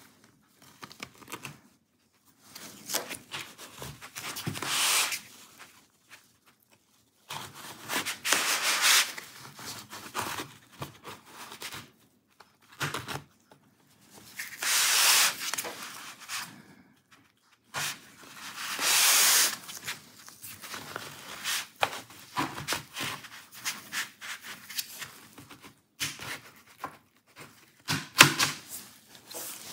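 Plastic pry tool scraping along the seam of a laptop's bottom panel in repeated strokes of a second or two each, with a few sharp clicks as the cover clips pop loose.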